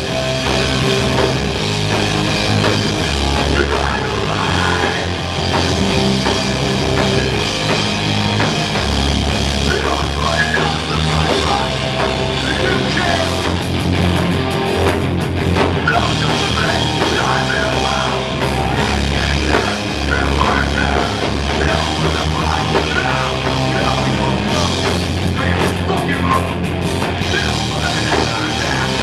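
Live heavy rock band playing loud: electric guitars, bass and drum kit in a continuous, driving song.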